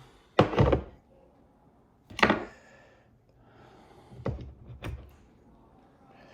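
A handful of separate knocks and clicks, four or five spread over several seconds with the first the loudest: a small screwdriver and parts being handled while knobs are fitted onto a guitar pedal.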